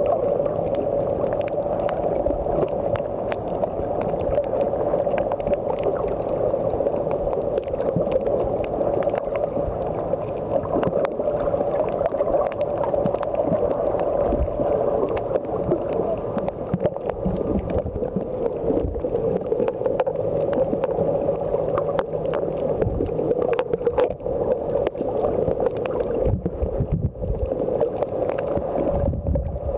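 Underwater ambience picked up by a camera held underwater: a steady muffled rush of water with many scattered crackling clicks.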